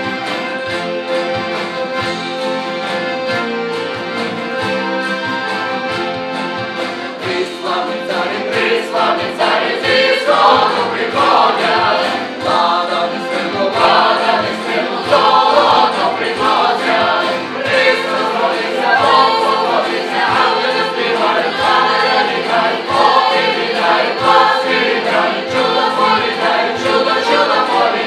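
A band playing a song on accordion and guitar over a steady kick-drum beat. After about eight seconds a group of voices comes in, singing loudly together.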